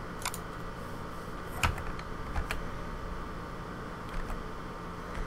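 A few scattered, separate clicks of a computer keyboard and mouse as a number is typed into a field, over a faint steady room hum.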